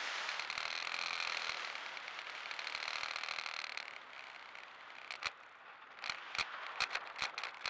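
A model motor glider rolling out on grass after landing, heard from its onboard camera: a steady rushing noise that fades about four seconds in, then scattered knocks and rattles as the airframe bumps over the ground.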